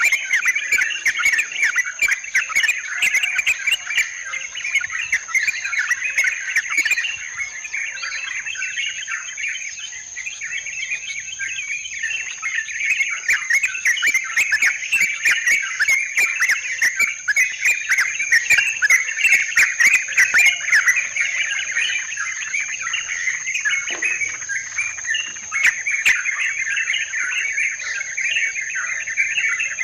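Yellow-vented bulbuls chattering and calling in a dense, unbroken stream, the lure call used to trap this species. A steady high-pitched insect drone runs beneath.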